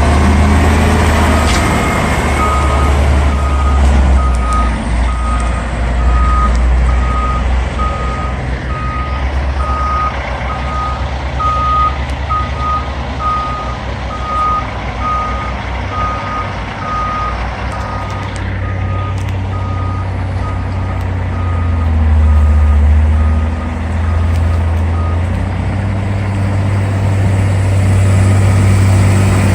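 Backup alarm on a heavy snow-removal machine beeping steadily at one high pitch about once a second while it reverses, over the low rumble of its diesel engine. The beeping stops near the end, and the engine swells briefly under load just before and again at the close.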